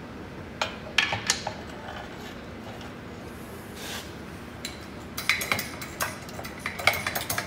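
Steel parts clinking and knocking as a steel plate, socket and propeller hub are set in place on a hydraulic shop press bed. A few single knocks come in the first seconds, then a quick run of clinks near the end.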